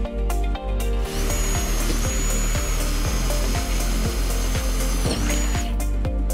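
Cordless drill boring a pilot hole through a van door's sheet metal. It starts about a second in and runs for about four and a half seconds with a high whine that dips briefly near the end.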